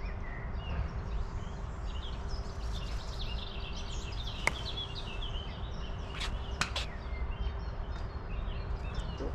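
Songbirds chirping over a low wind rumble on the microphone. A sharp click comes about halfway through, and a few fainter clicks follow a couple of seconds later.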